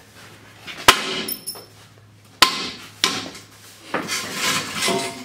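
Hard knocks and scraping as a porcelain toilet is worked loose from the floor: three sharp knocks in the first three seconds, then a stretch of rough scraping near the end.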